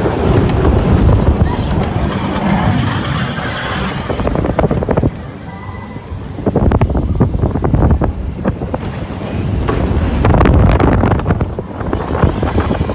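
Seven Dwarfs Mine Train roller coaster running fast through its curves, with the wheels rumbling and clattering on the steel track and wind buffeting the microphone. The sound eases briefly about five seconds in, then builds again.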